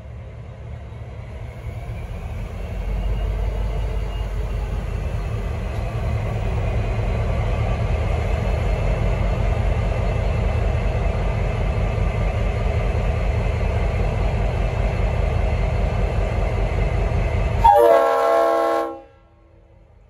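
V/Line N class diesel locomotive's EMD V12 two-stroke engine throttling up to pull away: a deep running that grows louder over the first few seconds and then holds steady. Near the end its Leslie RS5T five-chime horn sounds for a little over a second, then all the sound stops abruptly.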